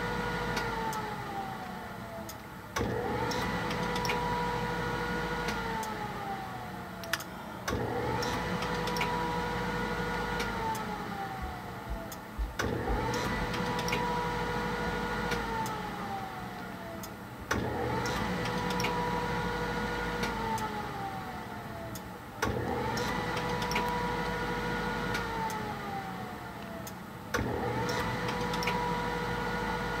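Gas furnace's draft inducer motor starting and stopping over and over, about every five seconds: each time it comes up to a steady hum for a couple of seconds, then winds down with a falling whine, with sharp clicks between. The furnace is calling for heat, but the hot surface igniter never comes on, so the burner never lights and the inducer keeps cycling.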